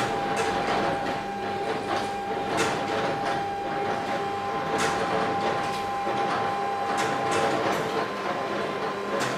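Small desktop machine running: a steady whine whose pitch shifts upward about four seconds in, with a short clack roughly every two seconds.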